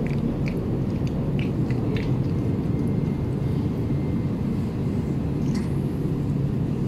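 A steady low rumble throughout, with a few small wet clicks of a cat chewing soft cat food near the start and again near the end.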